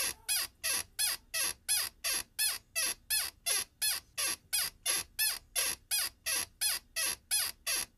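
A steady, machine-regular series of short high squeaky chirps, about three a second, each one rising and falling in pitch, as in an edited intro sound effect.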